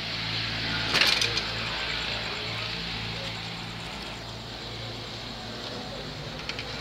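A Rusi KR150 motorbike being wheeled out by hand, with mechanical rattling and a loud clatter about a second in, over a steady low hum.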